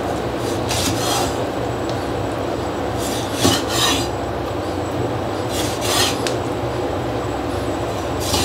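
Chinese cleaver slicing pickled mustard greens on a wooden chopping board, a rasping cut or scrape of the blade on the board every second or two, over a steady low hum.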